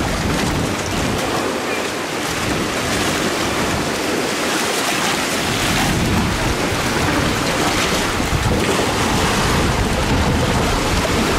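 Wind blowing across the microphone over choppy water churning against a piling and seawall, a steady rush of noise whose low rumble gets heavier about halfway through.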